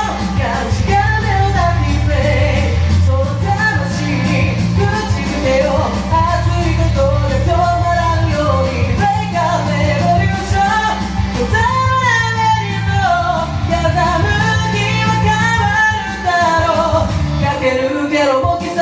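A sung cover of a rock song: a voice singing over a loud rock band backing track with heavy bass.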